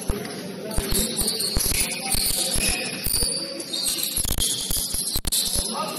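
Sneakers squeaking in short high chirps on a gym floor, amid irregular thuds of a bouncing basketball and running feet during live play.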